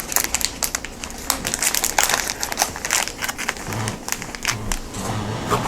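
Plastic snack wrapper crinkling as it is handled, an irregular run of crackles.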